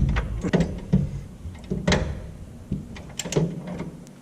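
Irregular metallic knocks and clunks of hand tools and suspension parts being handled and fitted, several in a row with short gaps, the loudest right at the start and about two seconds in.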